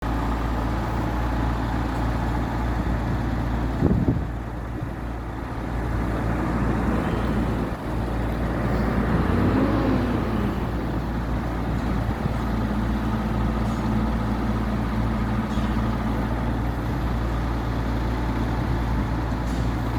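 Forklift engine running steadily while handling a heavy excavator bucket, with a single knock about four seconds in and a brief rise and fall in engine pitch around ten seconds in.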